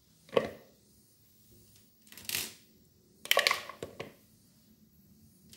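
Slime-coated plastic toy animals being handled and dropped into a bowl: a few short knocks and rustles, spread out, with a quick cluster of them a little after the middle.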